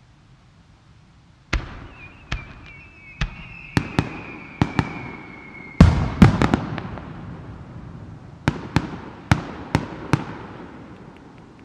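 Aerial firework shells bursting in a quick volley: about a dozen sharp bangs, each followed by a rolling echo, with the loudest pair about halfway through. During the first bangs a long whistle slides slowly down in pitch.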